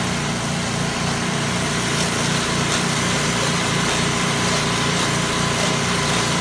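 Small engine of a soft-wash spray rig running steadily, with the hiss of a low-pressure detergent stream spraying onto house siding.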